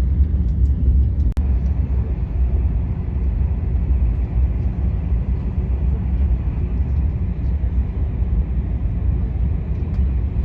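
KTX high-speed train running at speed: a steady, even noise with a strong low rumble and no changes, broken once by a single sharp click about a second and a half in.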